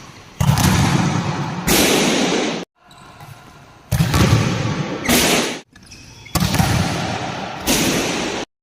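Volleyball spikes: a hard hand-on-ball smash starting each of about six short, abruptly cut segments, one every second or so, each followed by a loud noisy stretch of court sound.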